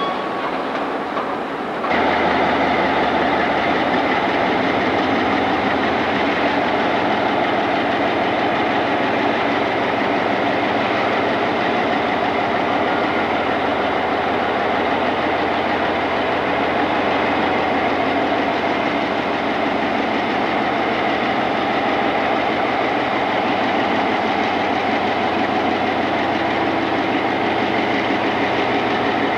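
Diesel locomotive engine that suddenly gets louder about two seconds in, as it is throttled up, then runs loud and steady while pulling a train of tank cars.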